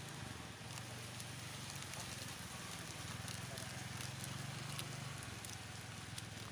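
Faint crinkling and scattered light clicks of a small paper sachet being squeezed and emptied into a plastic bowl of dry bait mix, over a steady low hum.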